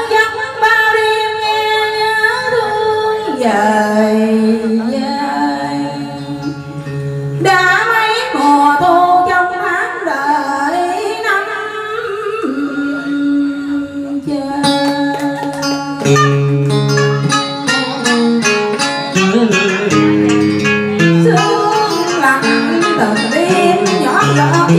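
A woman singing a Vietnamese bolero into a microphone, over amplified backing music with guitar.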